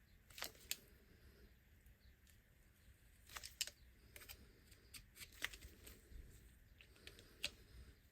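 Hand cutters snipping, heard as a few faint, sharp clicks scattered over several seconds, loudest about a third of the way in and again near the end.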